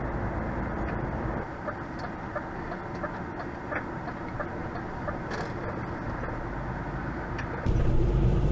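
Inside a semi-truck's cab while driving: steady engine and road noise with a few faint ticks. Near the end it suddenly gets louder, with a deeper rumble.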